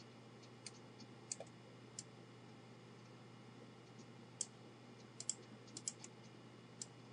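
Faint, irregular computer mouse clicks, about eight over several seconds, as tools are picked and the canvas is zoomed in MS Paint, over a low steady hum.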